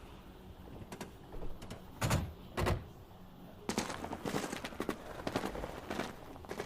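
Sharp knocks and thuds from the anime's soundtrack: two heavier thuds about two seconds in, then a run of quicker, lighter knocks.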